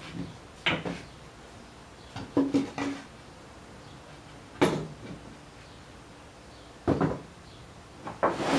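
Wooden pieces being handled and set down on a work surface: hollow knocks and short clatters, a small cluster in the first few seconds and two sharp single knocks near the middle and later on.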